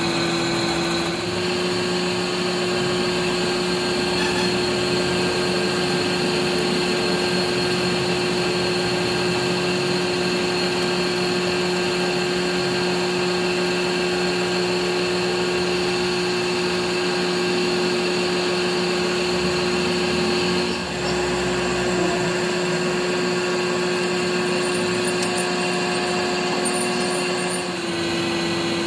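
Metal lathe running steadily, its cutting tool facing the end of a round steel bar held in a steady rest. A constant motor hum carries through, with the sound shifting abruptly a second in, about two-thirds of the way through, and near the end.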